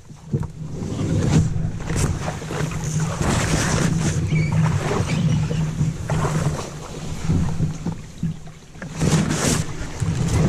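A canoe being dragged through a shallow, overgrown creek: grass, brush and ferns swish and scrape against the hull and the camera, with sloshing water and steady low rumbling handling noise on the microphone.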